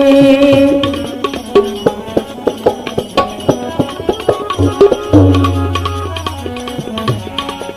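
Instrumental interlude of a Gujarati devotional bhajan: a held sung note fades out in the first second, then tabla plays a quick, busy rhythm with other hand percussion. A deep bass-drum stroke rings on for over a second a little after halfway.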